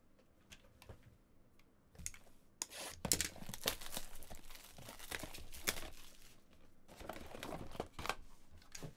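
Wrapper being torn off a Bowman's Best trading card box and crinkled by hand, a run of tearing and crackling that starts about two seconds in.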